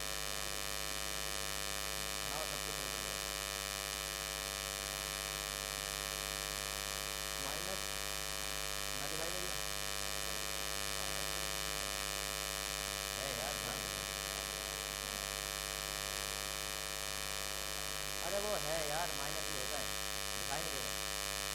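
Steady electrical hum and buzz with many overtones, held at one pitch throughout: interference that the uploader puts down to the inverter powering the room's lights.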